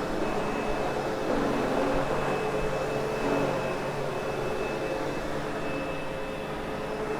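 Sebo X8 upright vacuum cleaner running steadily while being pushed over loop carpet, its motor noise carrying a thin high whine and a low hum.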